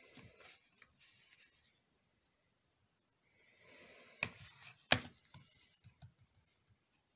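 Handling noises: soft rubbing and rustling in short spells, with two sharp clicks about a second apart near the middle, the second the loudest.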